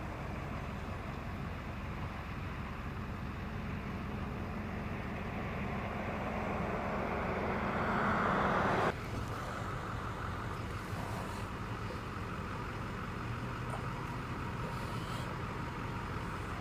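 Road traffic noise with a steady low rumble. A vehicle's sound swells over a few seconds and then cuts off abruptly about nine seconds in, leaving the steady rumble.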